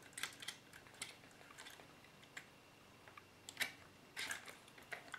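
Faint, irregular clicks and taps of small model-kit parts knocking together as a pin is worked through a spacer and the frame of a scale tow truck's towing arm. The louder taps come past the middle.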